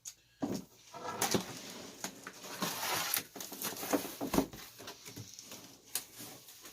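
Cardboard box of an RC truck being handled and its flaps opened: irregular rustling and scraping with a few sharp knocks.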